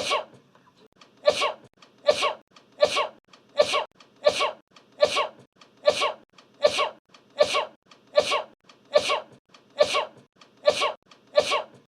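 Sneezing, the same sneeze over and over about fifteen times at an even pace, a little under a second apart, each one sudden and falling away.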